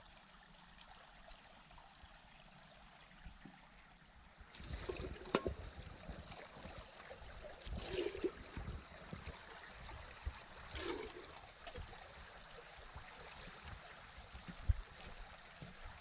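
Shallow stream trickling faintly. From about four and a half seconds in, water splashing and sloshing as rubber boots wade in the stream and a kettle is filled, with louder splashes about eight and eleven seconds in.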